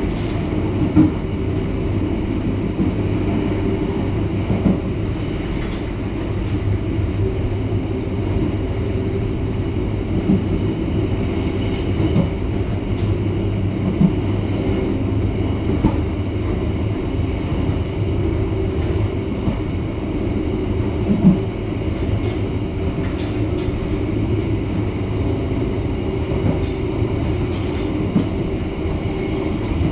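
Passenger train running at speed, heard from on board: a steady rumble of wheels on rails, with a sharp knock every few seconds.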